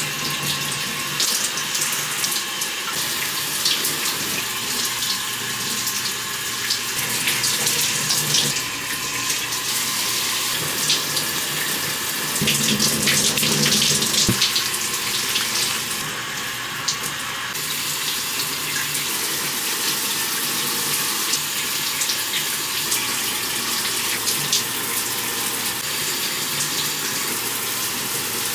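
Shower water running steadily, spraying and splashing, with short wet clicks and splashes as hands work through soaked hair.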